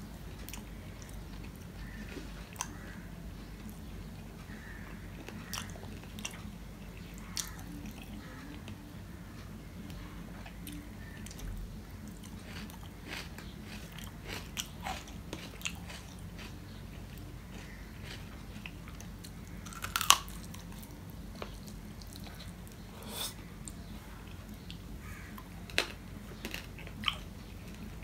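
Close-up eating sounds of a man eating rice and curry by hand: chewing with scattered sharp smacks and clicks, the loudest about twenty seconds in, over a low steady hum.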